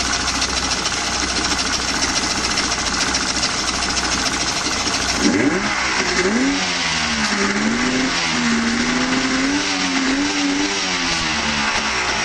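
2004 Yamaha 50 hp three-cylinder two-stroke outboard running in a water test barrel. It runs steadily, is revved up about five seconds in, and its pitch rises and wavers as the throttle is worked before easing near the end.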